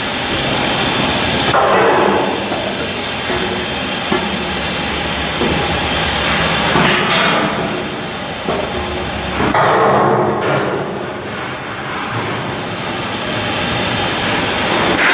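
Shipyard construction noise: heavy machinery running steadily, with scattered metal knocks and a few rising and falling surges of louder mechanical noise.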